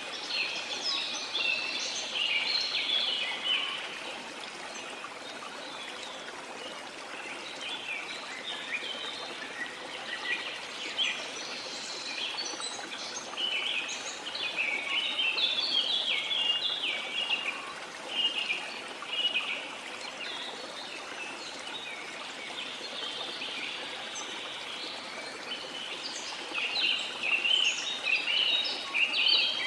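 Birds chirping in busy flurries of short, high calls that come and go, over a steady rush like running water.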